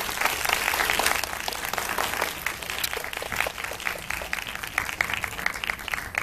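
Audience applauding, the clapping gradually thinning out and fading.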